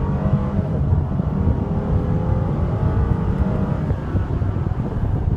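Twin-turbo V8 of a Mercedes-Benz SL550 accelerating hard under full throttle, its engine note rising steadily in pitch over a deep rumble, heard from inside the cabin.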